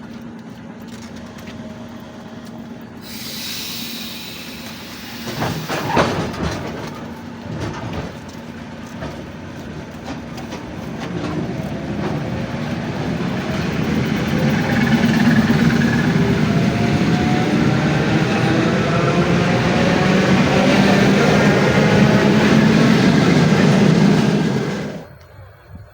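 A train running through a station. The wheels clatter and a sharp clack comes about six seconds in. The sound grows loud, with a rising whine, and cuts off suddenly near the end.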